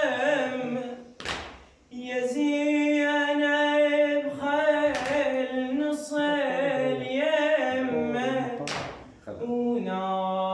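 A single voice chants a Husseini lament (a Karbala shawt in the long meter) with no accompaniment. The notes are long, wavering and melismatic, and the voice draws a sharp breath about a second in and again near the end.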